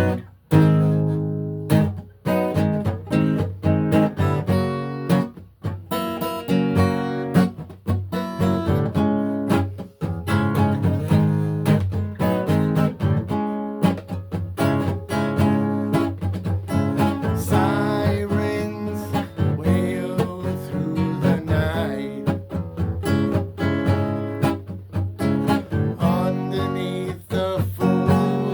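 Acoustic guitar being strummed, music starting abruptly and continuing with a steady run of strokes.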